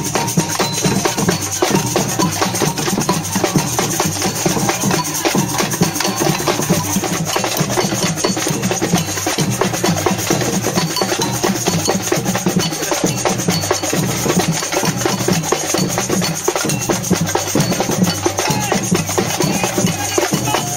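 Percussion music from a band of metal-shelled drums played with sticks, keeping up a steady, continuous rhythm.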